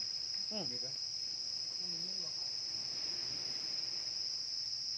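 Steady high-pitched drone of an insect chorus, with a couple of short soft voice sounds about half a second and two seconds in.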